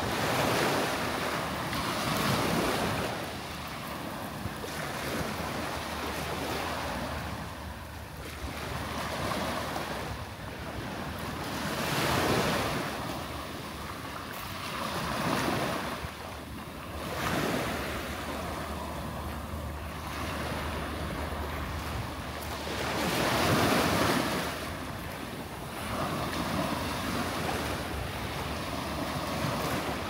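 Small waves lapping and washing up a shell-and-gravel beach, the wash swelling and easing every few seconds.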